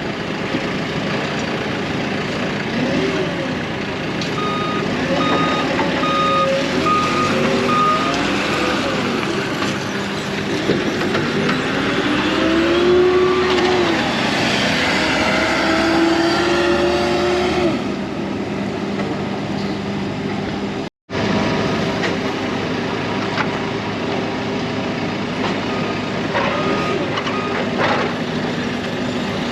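Heavy vehicle engines running at a lumber yard during loading, the pitch rising and falling as one revs. A reversing beeper sounds a run of evenly spaced beeps a few seconds in and again near the end.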